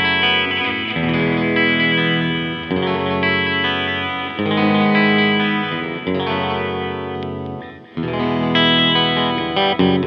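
Clean electric guitar, a Fender Custom Shop 1956 Stratocaster, played through a Maestro Echoplex EP-3 tape echo: ringing chords and notes that change about once a second. The sound dies down just before a fresh chord is struck about eight seconds in.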